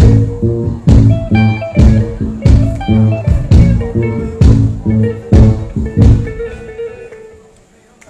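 Live band music through the stage sound system: plucked electric guitar over a deep bass line with a regular beat. It ends on a held note that dies away over the last second or two.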